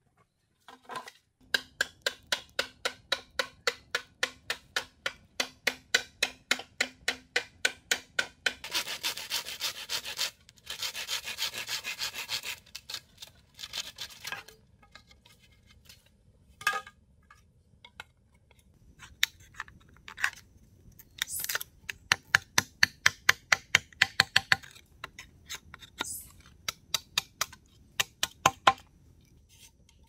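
A blade working a bamboo pole in quick back-and-forth strokes, about four a second. The strokes come in runs, with a few seconds of continuous rasping partway through.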